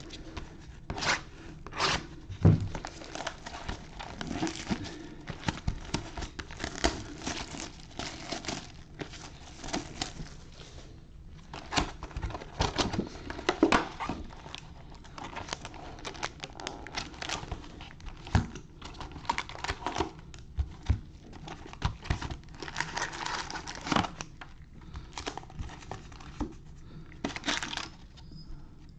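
Sealed 2020 Donruss Optic baseball hobby boxes being opened by hand: wrapping torn and crumpled off, then the cardboard boxes and foil card packs handled, an irregular run of crinkling, tearing and light knocks.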